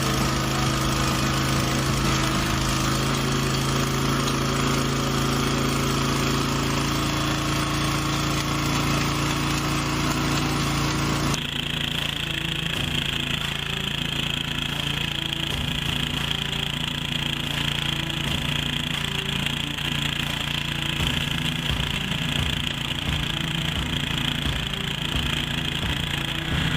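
Heavy stump-removal machinery running steadily under load, with engine drone and mechanical rattle. About eleven seconds in the sound changes abruptly to another machine that has a steady high whine over its engine.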